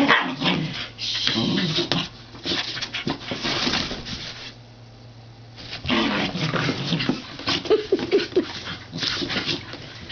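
Scottish terriers whining and grumbling at each other as one pushes its head into a cardboard box, with scraping and rustling of the cardboard, pausing briefly a little before halfway through.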